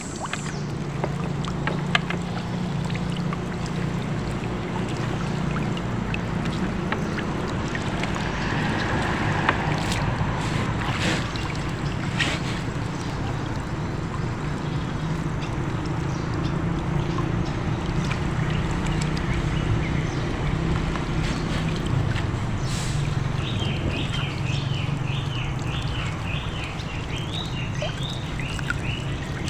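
A small boat engine idling with a steady low drone, with splashing and dripping as a gill net is hauled up out of the river by hand. Near the end a rapid run of high chirps, about two a second, joins in.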